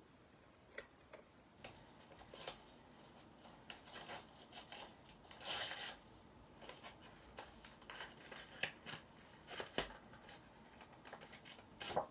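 Paper and packaging being handled to open a postal package: scattered crinkles and clicks, with a longer rasping tear or cut about five and a half seconds in.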